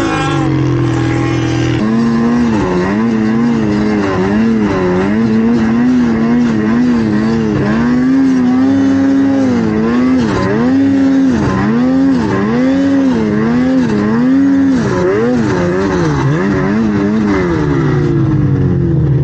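Snowmobile engine under the rider, held steady for about two seconds, then revving up and down over and over, about once a second, as the sled climbs through deep powder. Near the end the revs fall away as the sled slows.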